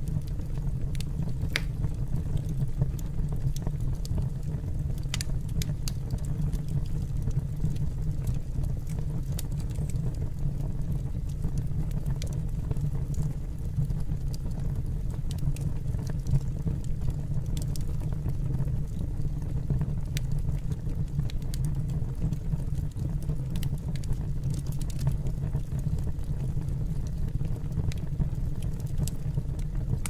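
Wood fire burning, a steady low rumble with scattered crackles and pops.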